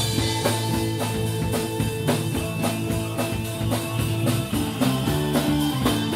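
Rock band playing: a drum kit keeps a steady beat under held guitar and bass notes, opening on a cymbal crash.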